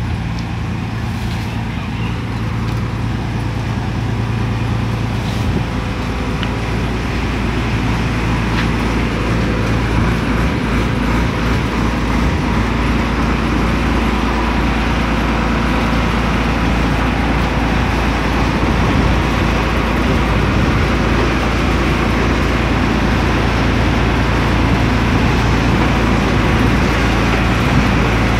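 New Holland 8060 combine harvester's diesel engine running steadily, growing gradually louder as the machine comes closer.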